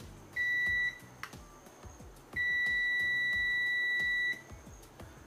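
Digital multimeter's continuity buzzer beeping as the probes touch transistor pins on a power-supply board: a short beep about half a second in, then a steady beep of about two seconds. The beep signals a short across the transistor's pins, a shorted switching transistor.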